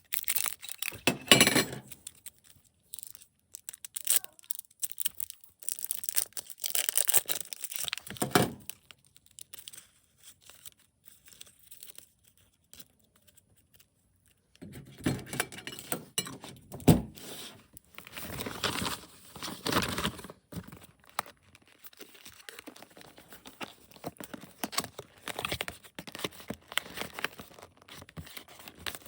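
Packaging being torn open and crinkled by hand in bursts, with a quieter pause in the middle.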